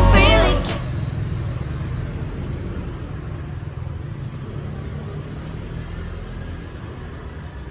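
Background song ends within the first second, leaving a steady low rumble of background noise with no distinct events.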